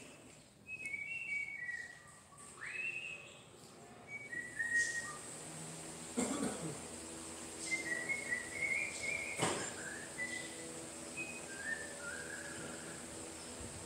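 Whistling: short clear notes that step up and down in little phrases, with one quick upward glide, and two sharp knocks along the way.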